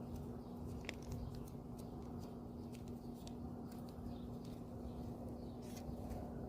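Faint scattered clicks and small handling noises as connector grease is worked onto a fog light bulb's electrical connector, over a steady low hum.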